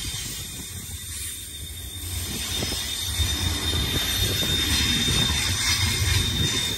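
BNSF double-stack container train rolling past: a steady rumble of steel wheels on rail, growing louder.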